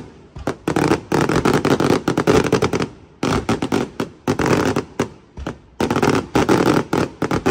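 Fireworks going off in clusters of rapid cracking bangs, one cluster after another with brief gaps.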